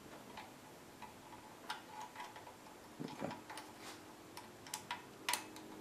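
Faint, irregular metallic clicks of an Allen wrench working in the set screw of a steel sprocket hub on a mini bike's jackshaft.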